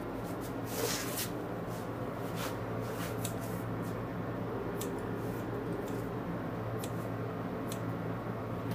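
Steady low electrical hum, with a few scattered light clicks and rustles from handling.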